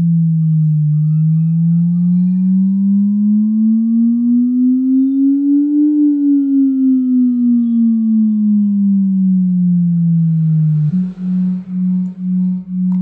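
Low tone from a phone speaker-cleaner app, played at full volume to shake trapped water out of the speaker. It glides slowly up in pitch for about six seconds and back down, then near the end switches to a steady tone pulsing about twice a second.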